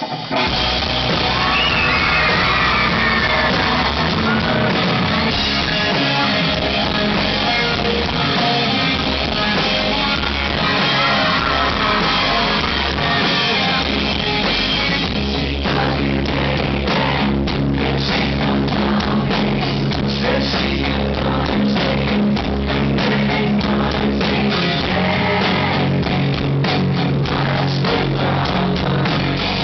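Live rock band playing, with electric guitar, drums and singing, heard through a digital camera's small built-in microphone. About halfway through, the drums and bass come in fuller with rapid drum hits.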